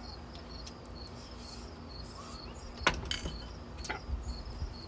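Crickets chirping steadily, with a few sharp clinks and knocks of a ceramic bowl, spoon and glass beer bottle on a glass-topped table. The loudest comes about three seconds in.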